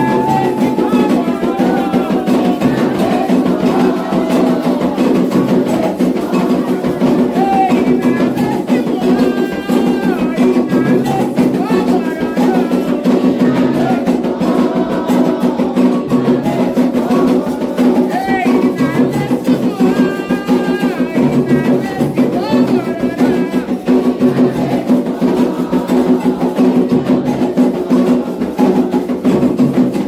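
Candomblé ritual music: atabaque hand drums with a sung chant carried by voices, going on without a break.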